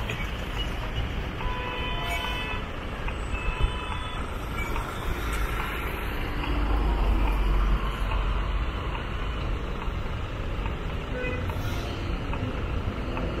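Street noise from a moving bicycle: a steady low rumble of wind and city traffic. A few brief high tones sound about two seconds in, and once or twice later.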